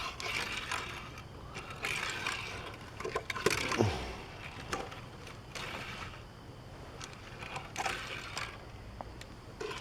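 Die-cast Matchbox '62 Corvette toy car pushed back and forth across a surface, its wheels rolling with a light whirring hiss in about five short passes, with a few small clicks.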